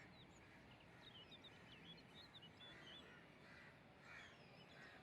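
Faint background birds calling, several short chirps and a few soft calls spaced about a second apart, over near silence.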